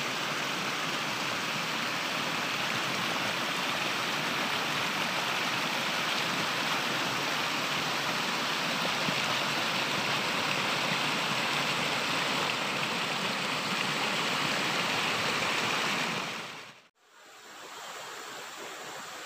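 Shallow stream rushing over rocks in a steady, even rush of water. A little before the end it cuts off abruptly and gives way to a much quieter steady rush.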